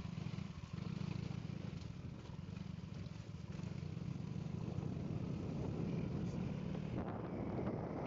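A vehicle on the move: steady low engine and road rumble, with wind hiss on the microphone that grows stronger about seven seconds in.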